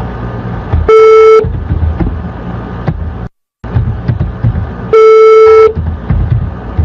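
Telephone ringback tone on an outgoing call: two steady beeps, the second a little longer, about four seconds apart. They sound over a loud, rough rumbling line noise that briefly cuts out between them.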